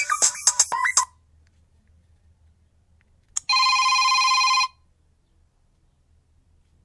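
Ringtones from a Sony Ericsson Xperia X10 mini pro phone: a beat-driven electronic ringtone cuts off about a second in. After a pause and a click, a single buzzy telephone-bell-style ring sounds for about a second and stops.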